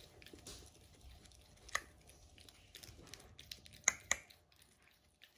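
A dog gnawing on a chew bone held in a person's hand: faint chewing with a few sharp clicks of teeth, one a little under two seconds in and a pair near four seconds.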